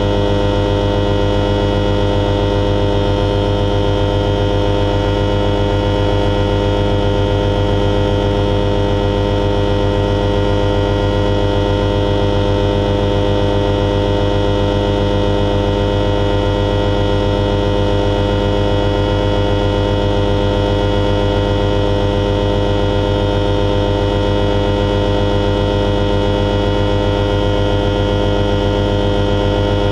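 Alisport Silent-in self-launching motorglider's engine running at a constant power setting, a steady drone with a strong low hum that does not change pitch, heard inside the cockpit.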